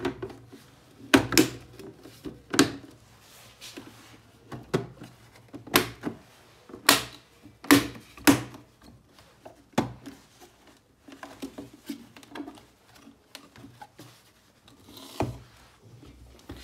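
Plastic housing of a multi-parameter patient monitor being handled and turned over on a workbench: a string of irregular knocks and clacks, about ten, with rubbing and shuffling between them.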